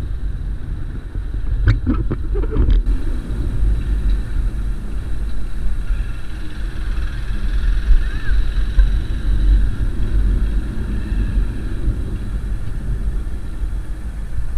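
Motorcycle running as the bike rolls along at low speed, with a steady low wind rumble on the rider's microphone.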